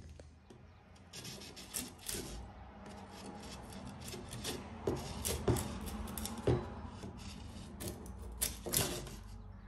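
Rustling, rubbing and scraping from old hand tools and their wrapping being handled and unwrapped, with scattered light clicks and knocks.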